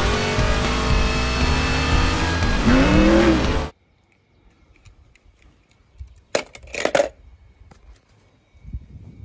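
Race-car engine sound effect mixed with music, which cuts off suddenly after nearly four seconds. About two seconds later come a few short clatters.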